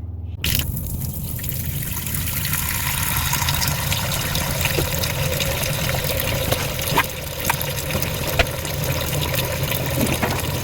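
Water running steadily, filling a container, with a few light knocks.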